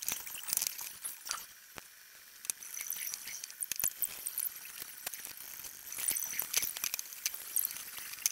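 One-handed bar clamps being set and tightened on a wooden neck: irregular short clicks and clacks of the ratcheting triggers and the plastic and metal jaws.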